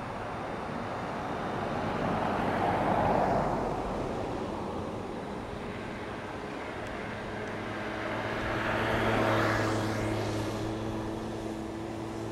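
Distant jet engine noise from a Boeing 767-300 airliner rolling along the runway after landing. The noise swells twice, about a quarter of the way in and again past the middle, and a steady low hum joins it in the second half.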